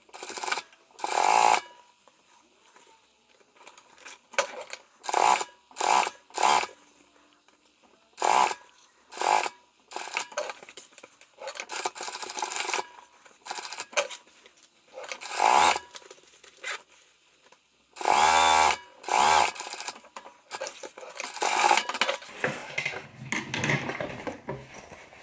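Sewing machine stitching a zipper into a pocket opening, running in many short stop-start bursts as the seam is guided around the zipper.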